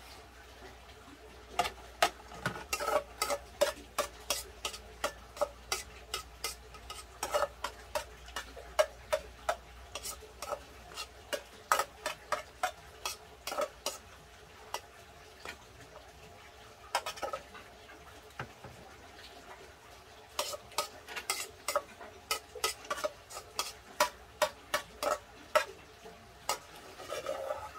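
Metal cutlery clinking and scraping against a pot as rice mixed with lettuce and stir-fried eggplant is eaten straight from it, in quick runs of sharp taps with a pause of several seconds in the middle.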